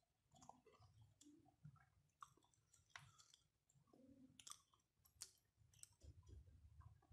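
Faint eating sounds from a person eating rice by hand: quiet chewing with scattered sharp mouth clicks and smacks, a few of them standing out.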